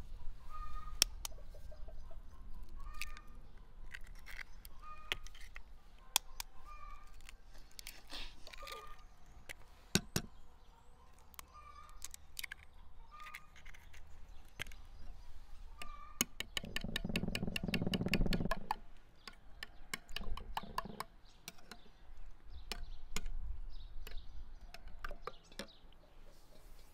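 Hen's eggs being cracked on the rim of a ceramic bowl, sharp cracks at irregular intervals, with chickens clucking in the background. About seventeen seconds in there is a couple of seconds of rapid clattering.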